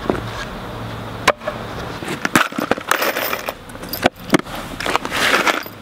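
Small metal screws clicking and rattling as they are picked out of a plastic tub, among scattered knocks and crunches of handling.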